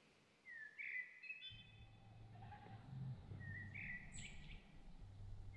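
Two wild bird calls, one about half a second in and one around three and a half seconds in, heard faintly over a low rumble that sets in about a second and a half in.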